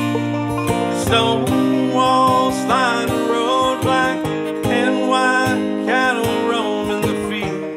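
Acoustic guitar strummed with a banjo picking alongside, playing a country-bluegrass song; a man's singing voice comes in about a second and a half in.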